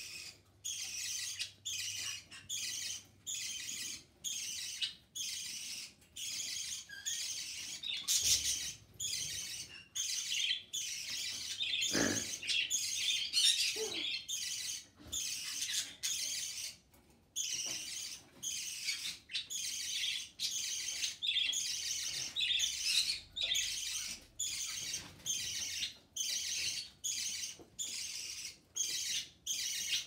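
Budgerigar chirping in a long run of quick, raspy calls, repeated about one and a half times a second: a young budgie begging for food from its mother.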